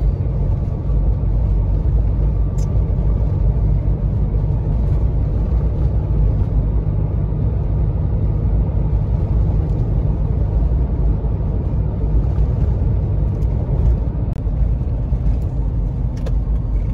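Steady low rumble of a vehicle driving along a paved road, engine and tyre noise heard from inside the cabin.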